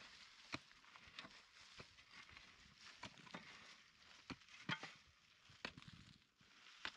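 Pickaxe and shovel striking and scraping dry, stony soil: sharp irregular thuds about once a second over a faint steady hiss.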